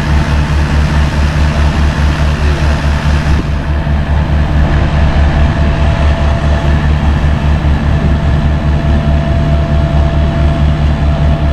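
Heavy diesel engine running steadily with an even, fast low throb during a winch recovery of a stuck mini excavator. A faint steady whine joins about five seconds in.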